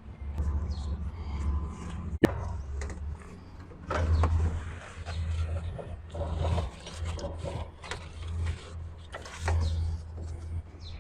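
Hand work under the hood on a car's accessory-belt drive: scraping and clicking of a wrench on the tensioner and the belt being worked off its pulleys, with one sharp click about two seconds in. Under it is a low rumble that swells and fades every second or so.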